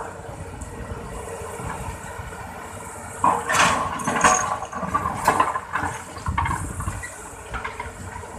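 Hydraulic excavator's diesel engine running steadily. From about three seconds in, there is a louder, irregular spell of rattling and scraping lasting about four seconds.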